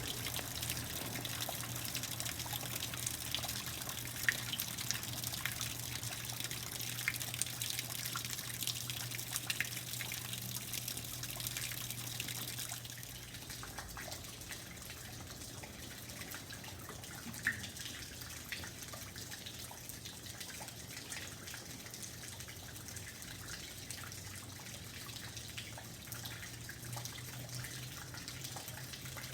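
Rain falling steadily, a hiss scattered with many individual drips, easing somewhat about halfway through. A low steady hum sits underneath.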